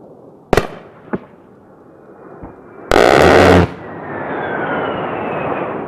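Two sharp cracks, then about three seconds in a burst of under a second from an A-10 Thunderbolt II's GAU-8 Avenger 30 mm Gatling gun, heard as one fast, dense rattle. After it, the jet's turbofan whine falls in pitch as the aircraft passes.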